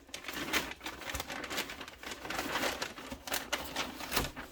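Packing paper being crumpled and rustled as it is pulled out of a shipping box, with many sharp crackles.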